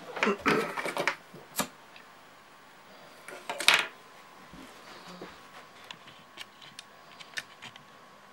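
Small objects handled on a tabletop with a few knocks and clicks, then a disposable lighter struck once, a short scratchy burst about three and a half seconds in, lighting a tealight candle. A few faint ticks follow.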